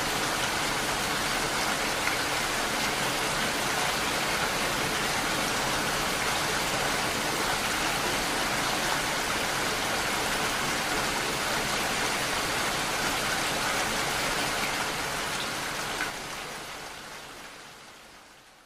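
Steady heavy rain falling on a hard surface, an even hiss of drops, fading out over the last couple of seconds.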